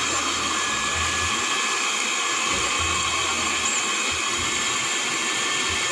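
Countertop electric blender running steadily, mixing a shake.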